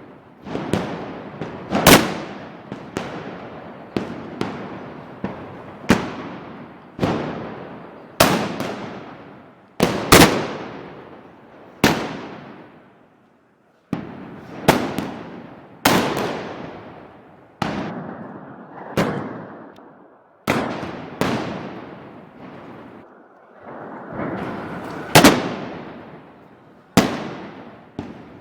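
Loud gunpowder bangs at an irregular pace, about one every second or two, each followed by a long echoing tail, with a brief lull about halfway through.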